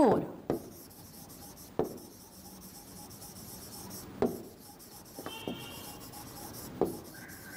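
Chalk writing on a chalkboard: a faint steady scratching, with a few sharp taps as the chalk meets the board and a brief high squeak about five seconds in.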